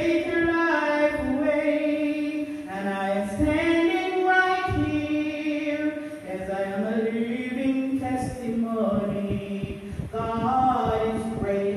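Church worship singing: voices holding long notes of a sacred song and moving from pitch to pitch.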